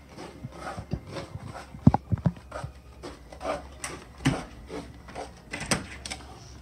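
Footsteps on carpet, among them a toddler walking in shoes made from cardboard cereal boxes, with several sharp knocks and clicks. The loudest come in a quick cluster about two seconds in, and a few more follow later.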